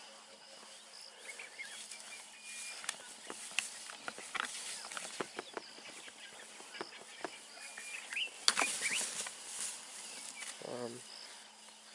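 Two bushbuck rams fighting with locked horns: scattered clicks and knocks of horn on horn and scuffling in dry grass, with a louder flurry of knocks about eight and a half seconds in.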